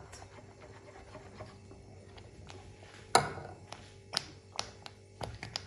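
Scattered sharp knocks and clicks of kitchen utensils against a pot while a thick cornflour pudding is stirred, the loudest about three seconds in and a few lighter ones near the end, over a faint steady hum.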